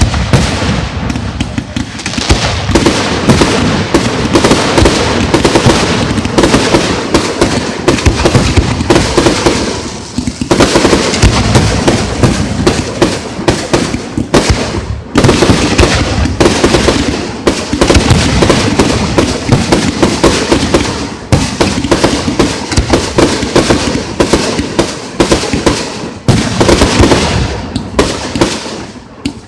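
Aerial fireworks display: a dense, nearly continuous barrage of bangs and crackling, easing off only briefly a few times.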